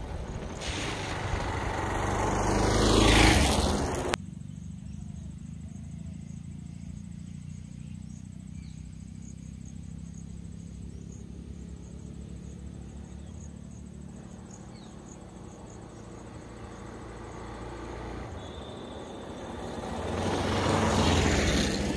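A motor vehicle passes close by, its sound swelling to a peak about three seconds in and then cutting off abruptly a second later. A steady low hum follows, and another vehicle passing swells up near the end.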